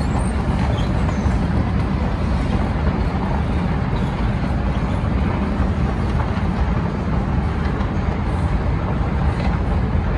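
Otis 2000 inclined travelator (moving walkway) running during a ride down, a steady low rumble from its moving pallets and drive.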